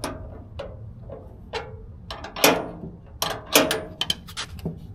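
Metal hand tools clinking and clicking as a ratchet wrench is picked up and worked on a bolt: irregular sharp clicks and clanks with short metallic ringing, loudest a couple of times in the middle.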